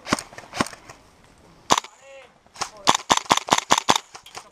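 Airsoft rifle firing: three single shots about half a second to a second apart, then a quick string of about ten shots.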